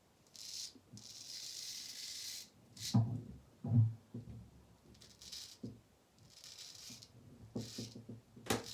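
Synthetic shaving brush working coffee shaving soap into a lather on the face: a run of separate scratchy, hissing brush strokes, with two soft thuds about three and four seconds in.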